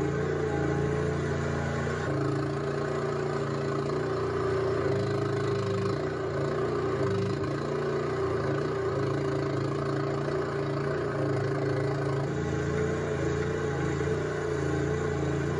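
Engine of a Chinese-made skid steer running steadily, its note shifting slightly a few times around the middle as it works.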